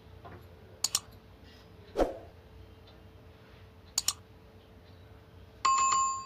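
Sharp clicks of a laptop touchpad being pressed, twice as a quick double click, with a soft thump of a hand on the palm rest between them. Near the end comes a brief bright ringing chime that starts suddenly and fades within about half a second.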